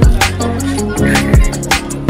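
Music with a heavy beat: deep bass-drum hits that drop in pitch, about one every two-thirds of a second, with sharp snare or clap hits between them over held chords.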